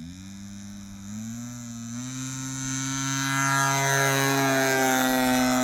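Electric ducted fan of a large RC jet spooling up for takeoff. Its whine rises in pitch in a few steps over the first two seconds, then holds steady as it grows louder.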